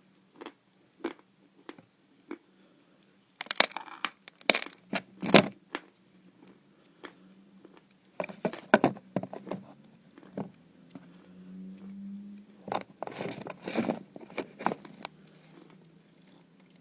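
Natural chalk being bitten and chewed close to the microphone: crisp, dry crunches, scattered at first, then in three louder runs starting about three and a half, eight and thirteen seconds in.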